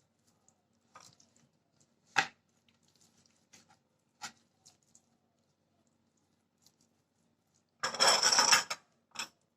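Kitchen dishes and utensils being handled: a few scattered knocks and clicks, then a noisy burst of about a second near the end, followed by one more knock.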